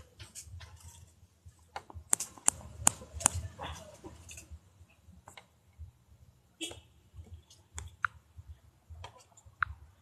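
Scattered small clicks and taps, bunched together about two to four seconds in and sparser after, with quiet gaps between them.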